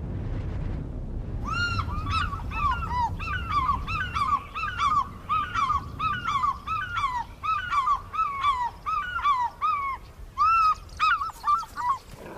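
African fish eagles calling: a fast run of yelping calls, each curving down in pitch, about four a second, starting about a second and a half in and closing with a few louder calls near the end. A low rumbling noise comes before the calls begin.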